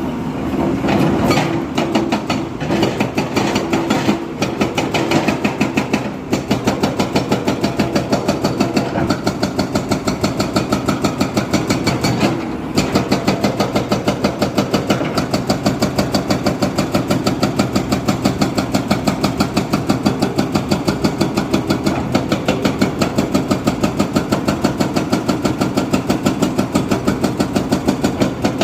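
Diesel engine of heavy construction machinery running near idle, with an even, regular pulsing beat that settles in after a brief dip about twelve seconds in.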